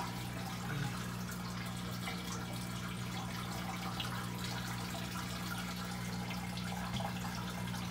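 Steady room background: a low, even electrical hum with a faint trickle of running water.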